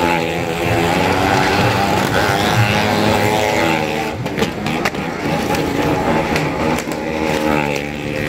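Engines of vehicles riding round the wall of a well of death, running steadily with their pitch wavering up and down as they circle, and a few sharp clicks about halfway through.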